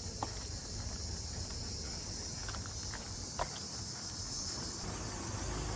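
Steady high-pitched buzz of insects in the open air, with a couple of faint clicks, the clearer one about three and a half seconds in.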